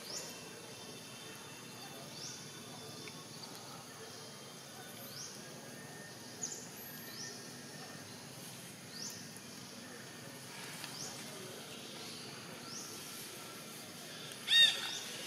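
Outdoor ambience with a steady faint hiss and short rising high chirps every second or two. A loud, shrill call with several arched notes comes near the end.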